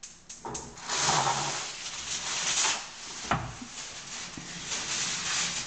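A shiny plastic bread bag rustling and crinkling as it is handled, with one sharp knock about three seconds in.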